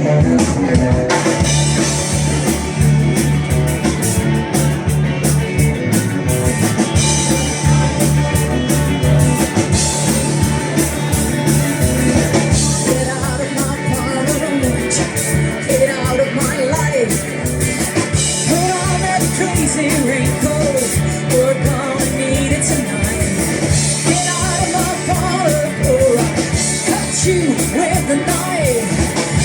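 A live rock band playing loudly, with drums, bass and electric guitar; from about halfway through a lead line with bending, wavering notes rises above the band.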